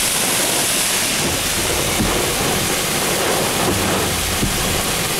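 Torrential rain mixed with pea-sized hail and strong wind, heard from inside a vehicle: a steady, dense hiss with no letup.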